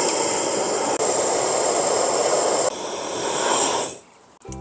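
Gas burner flame running full under blocks of charcoal being lit: a loud, steady rushing noise that fades out about four seconds in.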